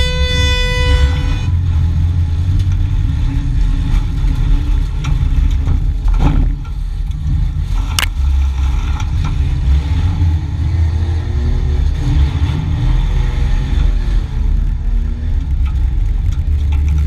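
Demolition derby vehicle's engine running hard and revving, heard from inside the stripped cabin. A horn sounds for about a second and a half at the start. Two sharp crashes of car bodies hitting come about six and eight seconds in.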